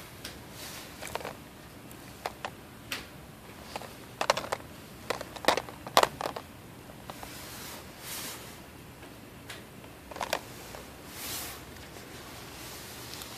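Handling noise: irregular sharp clicks and taps, clustered in the middle, with a few soft rustles.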